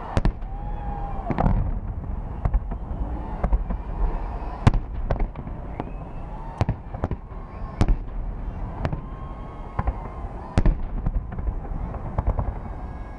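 Fireworks display: shells bursting with sharp bangs, roughly one a second at irregular intervals, over a continuous low rumble.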